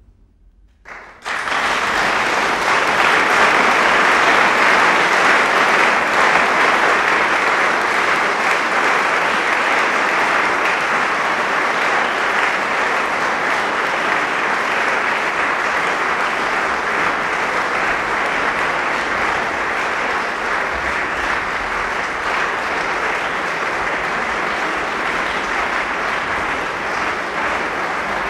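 Audience applause: a large crowd's clapping breaks out about a second in and carries on steadily, easing slightly near the end.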